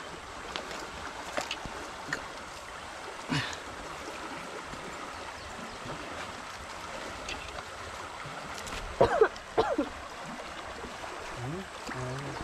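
River water flowing steadily over rocks, with a few faint clicks and, about nine seconds in, a couple of short, loud, pitched cries.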